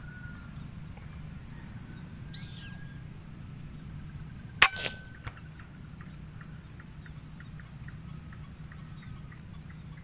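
An air rifle fires a single sharp shot about halfway through. A steady high-pitched chirring of insects runs underneath and drops away near the end, with a few faint bird calls.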